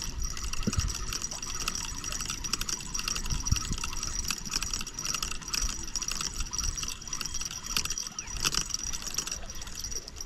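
Spinning reel being cranked, line winding in with a rapid, fine ticking from its gears and bail. A steady high-pitched note runs in the background.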